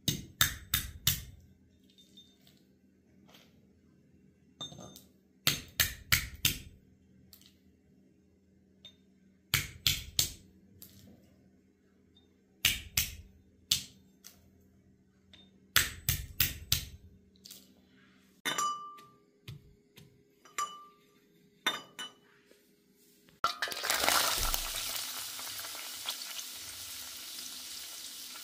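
Brass pestle striking inside a brass mortar: clinking strikes in quick groups of three or four every few seconds, then a few single ringing taps. Near the end, diced onions sizzling as they fry in oil in a pan.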